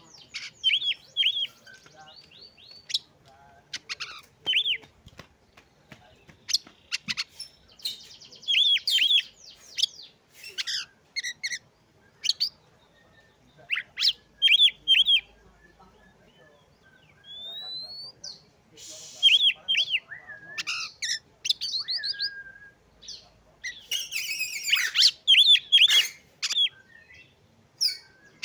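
Oriental magpie-robin singing vigorously in short phrases: quick runs of chirps, short whistles and a rising whistle, with brief pauses between phrases.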